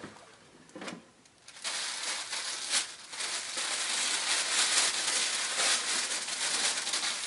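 Tissue paper rustling and crinkling as it is pulled open around a folded garment, a steady crackle from about a second and a half in, after a couple of light taps.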